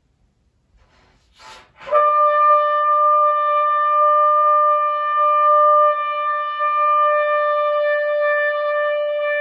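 A quick breath in, then a trumpet enters about two seconds in and holds one long, steady written E in the second octave (E5). The note is light and stable, played with relaxed lips and freely blown air rather than a pinched, tense embouchure.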